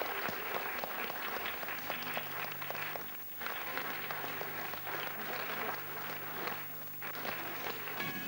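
Audience applauding, with a steady low hum underneath. The clapping thins briefly twice and picks up again.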